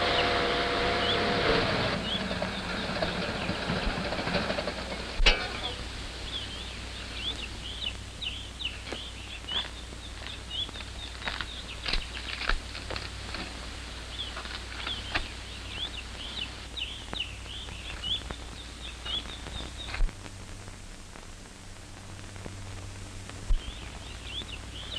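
Small birds chirping in quick, short repeated calls over a steady low hum and hiss of an old optical film soundtrack, with scattered faint clicks.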